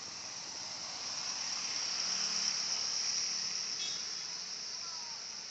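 Recorded swiftlet call sound, the kind played to lure swiftlets into a nest house: a dense, steady, high-pitched chirring that swells to its loudest in the middle, then eases off.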